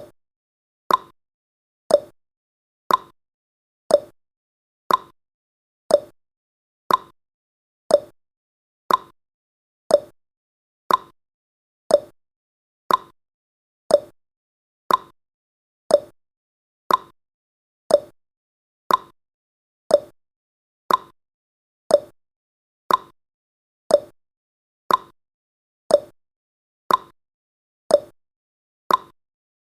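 Countdown timer's sound effect: a short blip once every second, evenly spaced, marking each second as it counts down.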